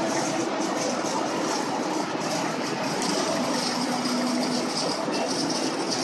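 Steady city traffic noise: the mixed hum of car engines and tyres circling a busy roundabout, with no single vehicle standing out.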